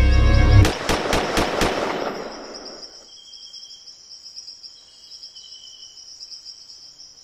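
A rapid burst of about six gunshots in a little over a second, echoing away over the next couple of seconds, cutting off the music. Crickets then chirp steadily and faintly.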